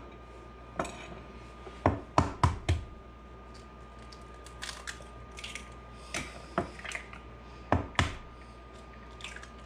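Eggs being cracked against the edge of a small bowl: sharp taps in quick clusters about two seconds in and again near the end, with a few lighter clicks between.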